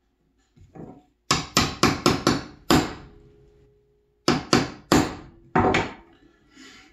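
Claw hammer striking the handle of a wood chisel to chop waste out of a joint in pine. A couple of light taps come first, then a quick run of about six blows, a pause, and about five more.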